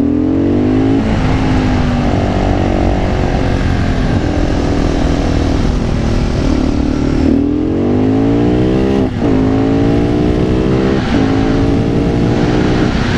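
A fuel-injected 610 cc single-cylinder supermoto engine, Husqvarna SM 610, accelerating hard through the gears. The revs climb and drop back at each upshift, about a second in and again several times later, over steady wind rush.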